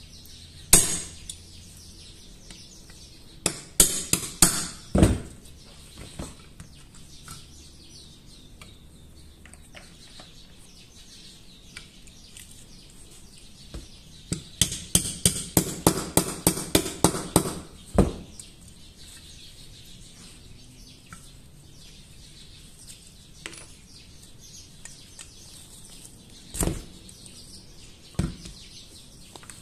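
Sharp metal taps and knocks of hand tools working on a small steel pistol frame: a few scattered knocks, then a quick run of about a dozen taps at roughly four a second midway, and two more knocks near the end.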